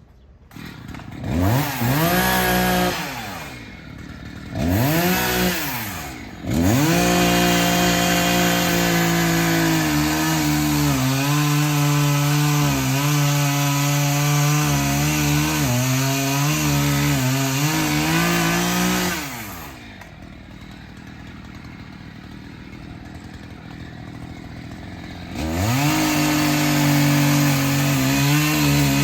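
Gasoline chainsaw revved in two short blips, then held at full throttle for about twelve seconds, its pitch dipping now and then as it bites into the tree. It drops back to idle for several seconds and is revved up again near the end.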